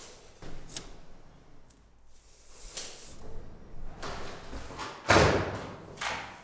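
Scattered clicks and taps from a folding ruler handled on a bare concrete floor, with one louder thump about five seconds in.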